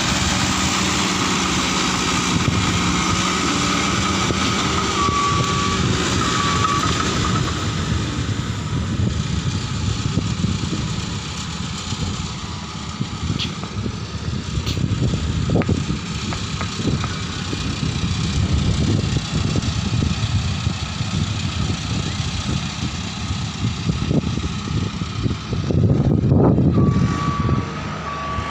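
Heavy earthmoving machine's diesel engine running steadily as it levels coal in a ship's hold, with its reversing alarm beeping briefly about five seconds in and again right at the end. From about halfway on, scattered clanks and knocks join the engine, with a louder burst of clatter a couple of seconds before the end.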